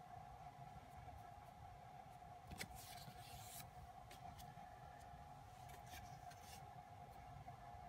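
Near silence with a steady faint hum, and a few brief scratchy rustles of paper photocards being handled and slid over one another.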